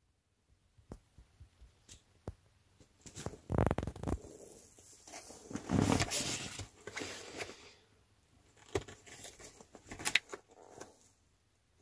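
Rustling and light knocks from someone moving about in the small enclosed space of a van, with scattered clicks and two louder rustles about 3.5 and 6 seconds in.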